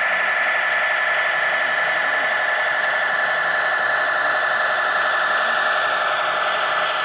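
Electric drive motor and gearbox of a radio-controlled scale model 6x6 truck, whining steadily as it creeps slowly along, the pitch dipping slightly near the end.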